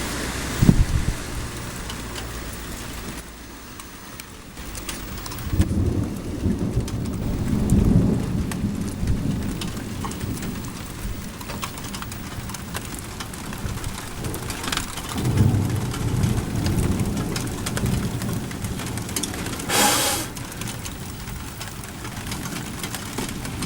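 Thunderstorm: steady rain with rolling thunder. There is a sharp clap just under a second in, long low rumbles after about five seconds and again past the middle, and a short sharp crackle near the end.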